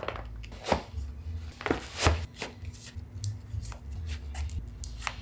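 Running shoes being handled on a tile floor and laced up: a string of soft taps, scuffs and rustles, with the sharpest knocks about two seconds in, over a low steady hum.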